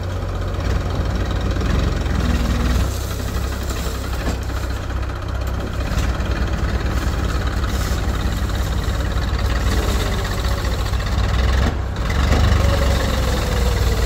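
Tractor engine idling, a steady low-pitched running sound.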